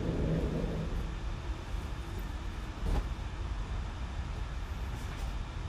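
Steady low rumble of background noise, with a faint low hum in the first second and a single click about three seconds in.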